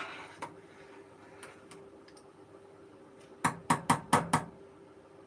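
Metal ladle in a stainless steel pot of lentil soup: a brief scrape at the start, then five quick knocks of metal on metal about three and a half seconds in, as the ladle strikes the pot's rim.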